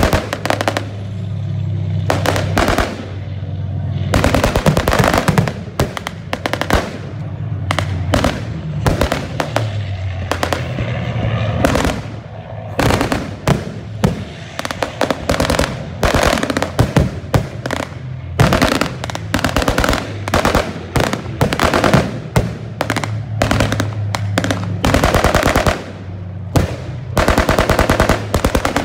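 Machine-gun fire in long rattling strings of rapid shots with short pauses, over a low steady drone at the start and again near the end.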